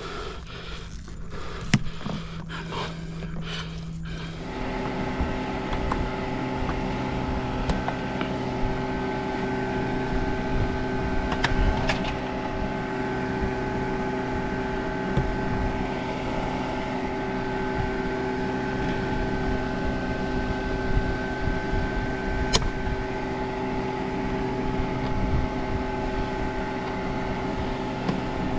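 A steady mechanical drone, a low hum with several held higher tones, from an engine or motor running nearby; it sets in abruptly about four seconds in. A few light clicks of tools and wire handling sound over it.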